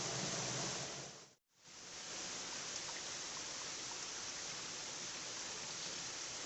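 Steady rushing of river water. It drops out abruptly for a moment about a second and a half in, then carries on.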